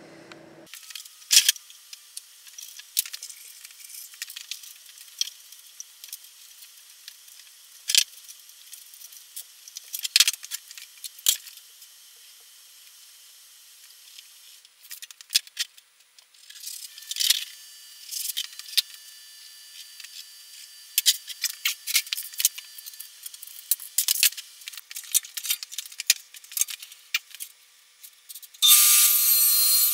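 Scattered clicks, taps and rubbing of hand tools and boards being handled and marked on a workbench. A loud steady rushing noise starts near the end.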